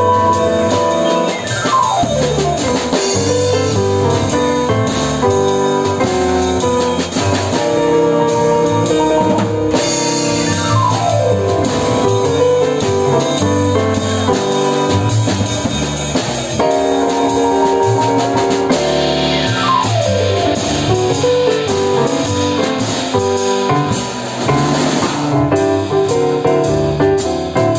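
Jazz piano trio playing: a Yamaha digital piano, an upright double bass and a drum kit with cymbals. Three quick downward runs come about nine seconds apart.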